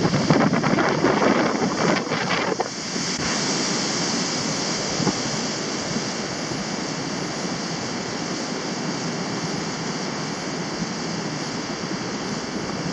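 Steady rushing of a waterfall, with wind buffeting the microphone for the first two or three seconds.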